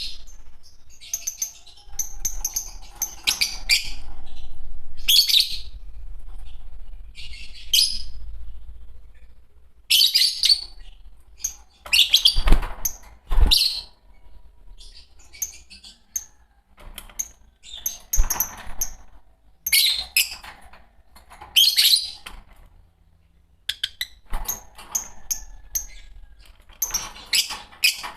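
A pair of Fischer's lovebirds chirping in short, shrill, high-pitched bursts, call after call at an uneven pace, with a couple of sharp thumps about halfway through.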